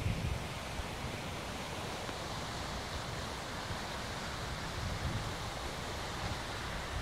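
Steady outdoor rushing hiss with an uneven low rumble of wind on the microphone.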